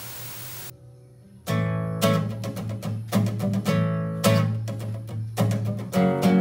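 A steady hiss cuts off under a second in. After a short pause a nylon-string classical guitar comes in with rhythmic strummed chords.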